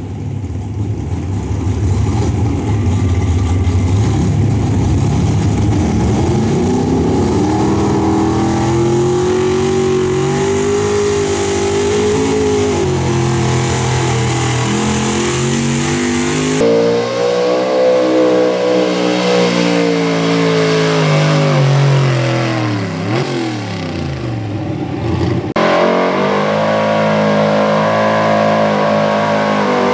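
Small-block V8 pulling truck running hard under load on a pull, its engine pitch climbing, holding and sagging as it drags the sled. About two-thirds of the way through the revs drop sharply and climb again. The tone changes abruptly twice.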